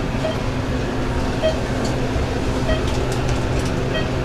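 A loaded brass luggage cart rolling, its wheels giving a steady low rumble with a small click repeating about once every second and a bit.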